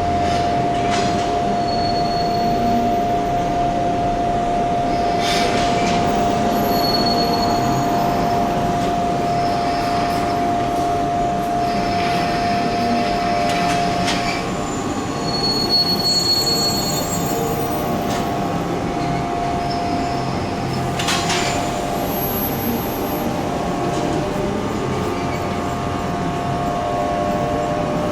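CP 3150-series electric multiple unit moving slowly at low speed with a steady whine, squealing wheels and short high brake squeals. Sharp clanks about five seconds in and again about twenty-one seconds in.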